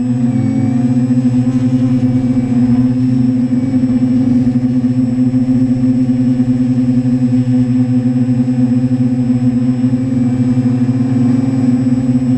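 TBS Discovery Pro quadcopter's motors and propellers humming steadily while it hovers, a held chord of several tones that wavers slightly in pitch.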